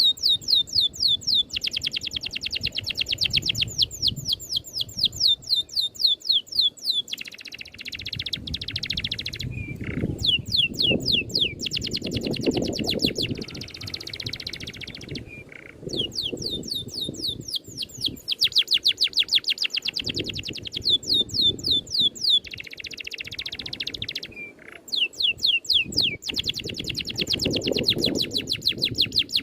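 A songbird singing a fast rolling trill of rapidly repeated high, downward-sweeping whistle notes in long runs, alternating with shorter buzzy stretches, over a low background rumble. This is a masteran song track for training cage birds, with dense, evenly fired 'shots' of song.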